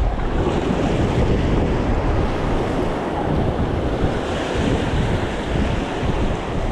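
Sea surf washing and breaking over a rocky shore in a steady rush, with wind buffeting the microphone.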